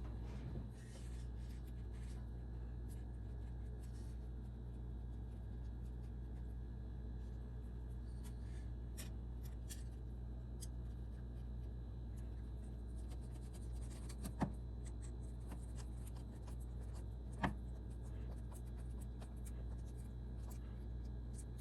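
Light handling and rubbing noises from parts and tools being worked by hand, with a few sharp clicks, the loudest two about halfway through and three seconds later, over a steady low hum.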